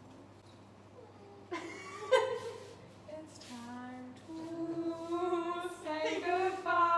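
Women's voices singing, starting about a second and a half in after a quiet start, with long held notes that grow louder in the second half.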